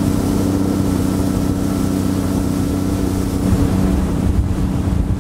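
Outboard motor on a bass boat running under way at speed with a steady, even drone, over the rush of water and wind.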